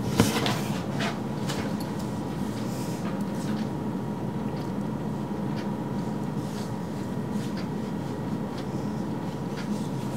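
Steady background hum with a faint hiss, with a few soft clicks in the first second or two and now and then after.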